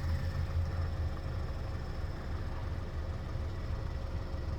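Steady low hum of an idling car engine, with a faint steady tone above it.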